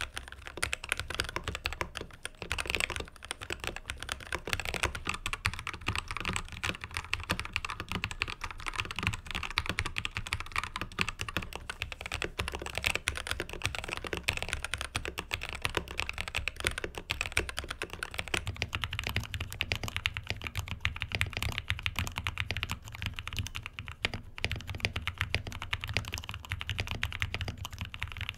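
Continuous fast typing on an upgraded Ziyoulang K68 wireless mechanical keyboard, a dense run of key clicks and bottom-outs.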